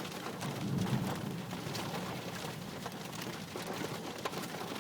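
Steady rain with scattered drop clicks over a low rumble, heard through a cell phone's microphone.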